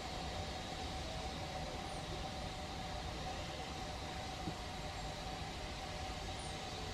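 Steady hiss with a faint steady hum from a distant steam locomotive standing with steam up, waiting to depart.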